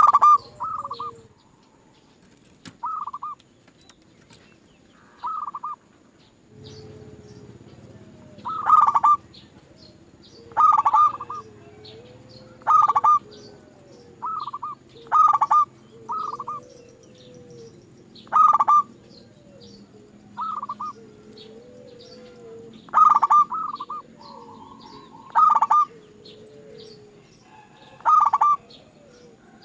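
Zebra dove (perkutut) cooing: short, loud bursts of rolling coo notes about every two seconds, with softer curving lower notes between them. A faint low steady hum comes in about six seconds in.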